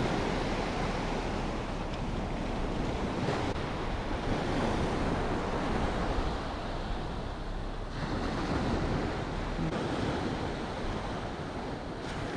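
Waves washing onto a sandy beach, swelling and falling every few seconds, with wind buffeting the microphone.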